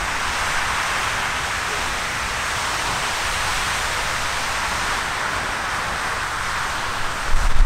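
Riverside Geyser erupting: a steady rushing hiss of its water jet and steam spraying and splashing down into the Firehole River. A low rumble comes in just before the end.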